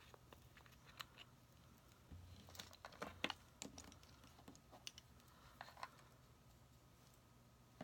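Near silence with faint, scattered small clicks and taps, a handful bunched together about three seconds in, from a small cosmetic container being handled.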